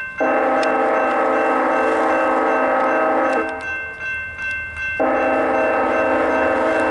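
Union Pacific locomotive air horn sounding two long blasts of a multi-note chord, the first lasting about three seconds and the second starting about five seconds in. Between the blasts a grade-crossing electronic bell, a General Signal Type 2, dings rapidly.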